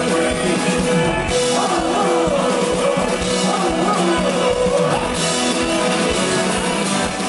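Live band playing a song with singing over acoustic guitar, heard from among the audience. A high hiss comes in about a second in and drops out near five seconds.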